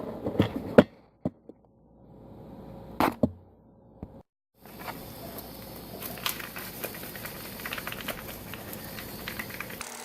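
A CPU heatsink base being sanded by hand on 3000-grit sandpaper, lapped towards a mirror finish: a steady gritty rubbing made of many small strokes. A few sharp knocks and clicks of handling come in the first seconds, and the rubbing starts after a short dropout about four seconds in.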